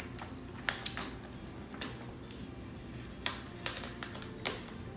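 Packing paper crinkling and rustling as it is pulled away by hand, in a handful of short, sharp crackles.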